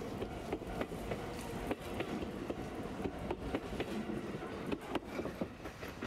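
Limited express Snow Monkey electric train running along the track: a steady rumble with irregular clicks and knocks from the wheels on the rails.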